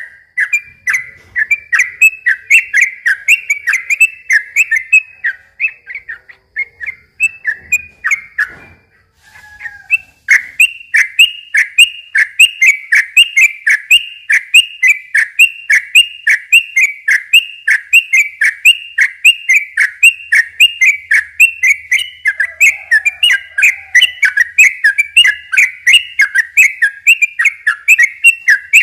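Sooty-headed bulbul (trucukan) singing a long rapid run of short, bright whistled notes, about three a second, with a short break about eight seconds in before the run starts again.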